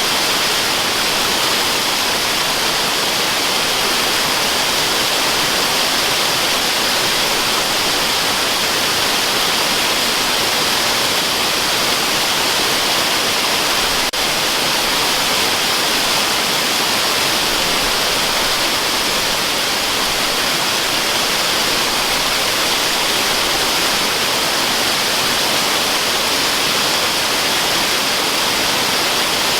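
Waterfall: water falling and rushing in a steady, unbroken hiss with no change in level.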